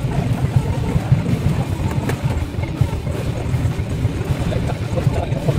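Bass-heavy background music.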